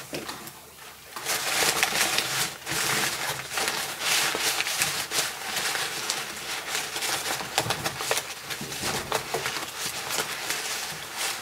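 Paper crinkling and rustling, a dense irregular run of small crackles that starts about a second in.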